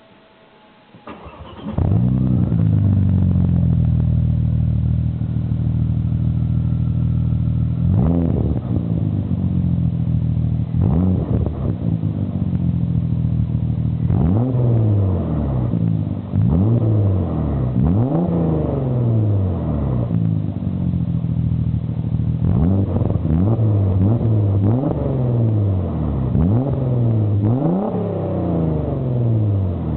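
Audi B5 S4's 2.7-litre twin-turbo V6 through a custom exhaust with the primary catalytic converters deleted and a single 3-inch pipe with a Magnaflow muffler. The engine starts about a second and a half in and idles. From about eight seconds in it is revved again and again in short throttle blips, closer together in the second half.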